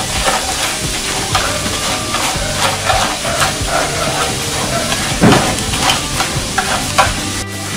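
Small crabs sizzling as they are stir-fried in a frying pan on a gas stove and turned with long wooden chopsticks, with frequent light clicks of shells and chopsticks against the pan.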